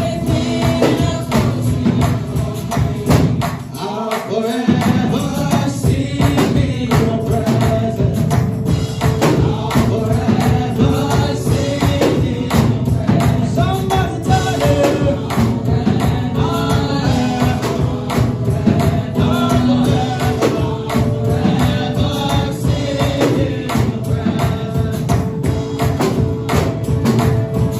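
Gospel praise music: singers over a steady beat with tambourine shaking throughout; the bass drops out briefly about four seconds in.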